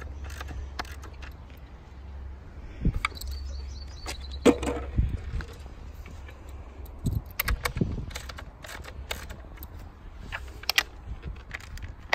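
Handling noise on a clip-on microphone: irregular clicks, knocks and rustles as the mic and its cable are fiddled with, over a steady low rumble.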